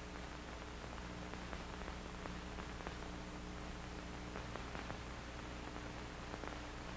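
Old film soundtrack background: steady hiss with a low hum and faint scattered crackles, and no other sound.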